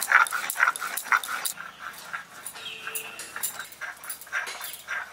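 Rhythmic scraping of a stone roller pushed back and forth over a flat grinding stone (shil-nora), grinding wet spice paste, about three strokes a second.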